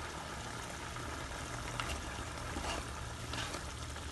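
Coconut-milk curry sauce bubbling at a boil in a pan: a steady soft bubbling hiss with a few small pops.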